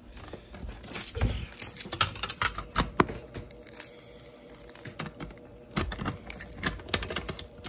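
A bunch of keys jangling and clicking in the hand in irregular bursts, with a few sharper knocks, over a faint steady hum.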